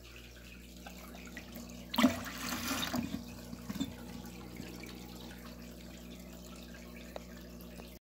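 Water squirted from a turkey baster into a plastic bucket: a sudden splash about two seconds in that lasts about a second, then a few smaller drips and splashes.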